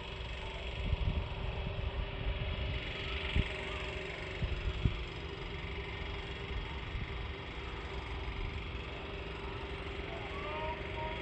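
A steady engine hum over a dense low rumble, with two sharp knocks about three and a half and five seconds in.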